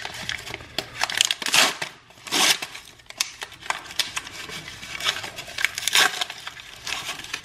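A frozen bagel dog's cardboard package and thin film wrapper being torn open and pulled apart by hand: irregular rustling and crinkling with sharper ripping and crackling.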